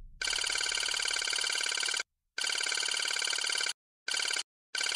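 Electronic ringing tone with a fast trill, much like a telephone ring, starting about a quarter-second in and sounding in four stretches separated by brief silences.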